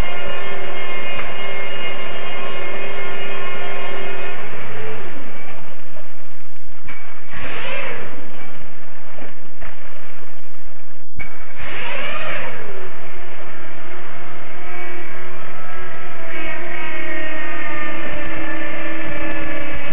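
A motor running steadily. Its pitch drops about five seconds in, two brief rising-and-falling sweeps follow, and the steady running picks up again after a short break near the middle.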